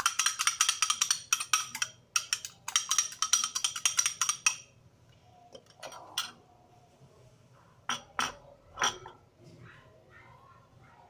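Metal fork beating egg in a ceramic bowl: fast, ringing clinks of the fork against the bowl, with a short pause, that stop about four and a half seconds in. A few separate knocks follow later.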